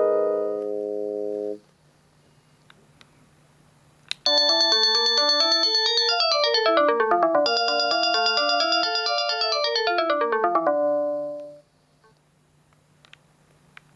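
Panasonic KX-TGD62xE cordless phone playing a built-in ringtone. The tail of one tone's held chord stops about a second and a half in. A few seconds later a new electronic melody of quick notes runs down and back up in pitch twice and ends on a short held chord.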